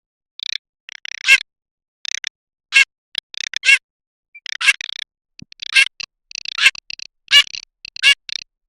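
Garganey calls: bursts of short, dry rattling notes, with a louder, sharper call about once a second and brief silent gaps between the bursts.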